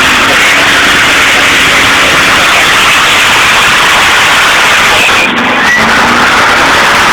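A car doing a burnout: the engine is held at high revs while the rear tyres spin and screech. The result is a loud, steady, harsh noise that saturates the phone's microphone.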